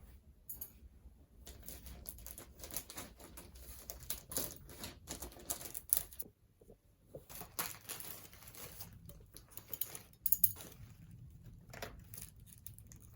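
Faint, irregular clicks and taps of small objects being handled.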